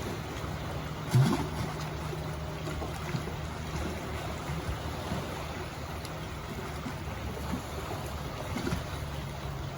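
Steady wash of sea water with a low, steady hum under it, and a single thump about a second in.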